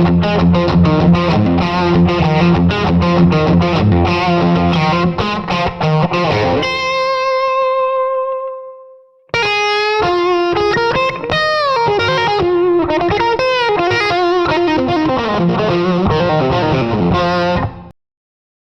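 Background music led by an effects-laden electric guitar. About seven seconds in, a held note rings out and fades, then a new phrase of bending guitar notes starts, and the music cuts off abruptly near the end.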